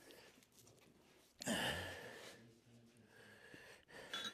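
A man sighs once, about a second and a half in. Near the end there is a light metallic clink as small pieces of brazing rod are set against the steel horseshoe's calks.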